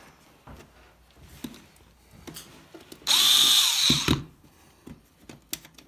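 Small cordless power screwdriver running for about a second with a whine that spins up and winds down, backing a small Phillips screw out of the sign's metal frame. A few faint clicks and taps of handling come before it.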